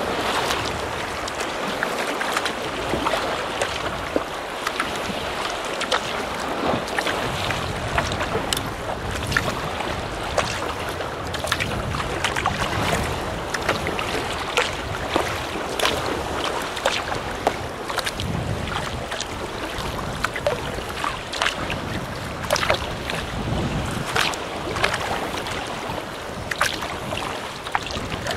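Sea water splashing and slapping against a kayak on a choppy sea, in many short irregular splashes over a steady wash, with gusts of wind rumbling on the microphone now and then.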